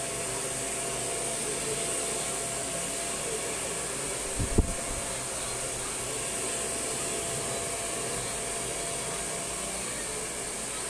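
Handheld hair dryer blowing steadily, a high airy hiss with a faint steady whine under it. A brief low thump sounds once about four and a half seconds in.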